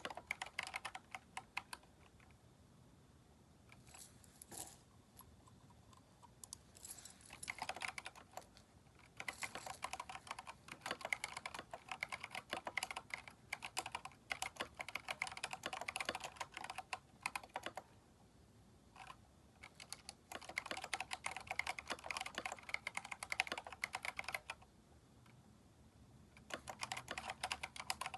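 Keychron K4 mechanical keyboard, fitted with replacement keycaps, being typed on in bursts of rapid key clicks. Pauses of a second or two break up the typing, and a long pause comes near the end before typing resumes.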